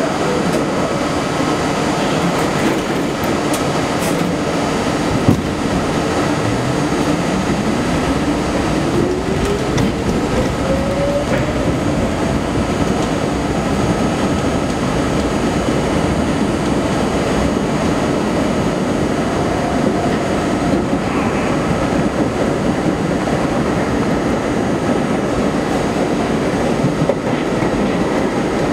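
Budd R32 subway train pulling out and running on its rails with a steady rumble, a single knock about five seconds in, then the traction motors' whine rising in pitch over about five seconds as the train picks up speed.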